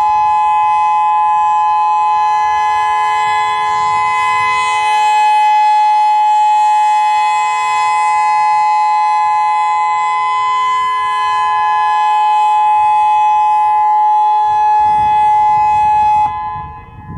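Federal Signal EOWS 612 electronic outdoor warning siren sounding its steady alert signal, a loud two-note tone held at constant pitch. About a second before the end it cuts off suddenly, leaving a short echo that fades.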